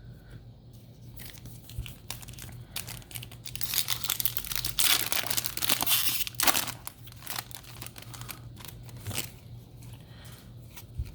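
Foil Yu-Gi-Oh! booster pack wrapper crinkling and being torn open, loudest for a few seconds in the middle, then lighter crackling as it is handled.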